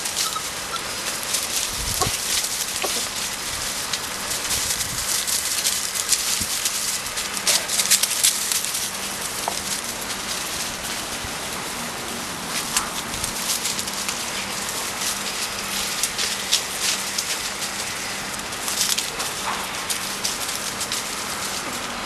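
Dry leaf litter and bamboo foliage rustling and crackling steadily, with scattered sharper clicks, as the puppies scamper and root through it.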